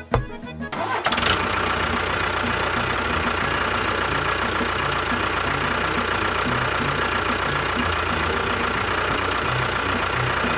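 A steady engine or motor running noise starts abruptly about a second in and holds at an even level, with music's low beat faintly underneath.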